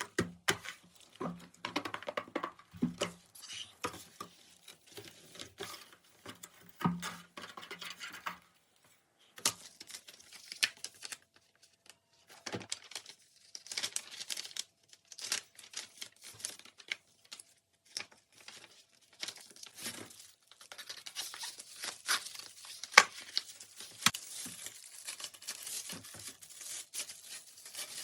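Packaging of a new vacuum cleaner being handled: plastic wrap crinkling and tearing, with irregular clicks and knocks as parts are moved, denser from about three quarters of the way in.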